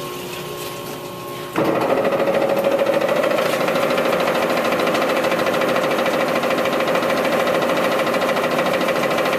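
Harrison lathe running with a few steady tones, then about one and a half seconds in the headstock is engaged at 63 RPM and loud gear noise with a fast, even pulse takes over and holds steady. This is one of two speed ranges on this lathe that run noisily, though the headstock gearing and bearings look sound.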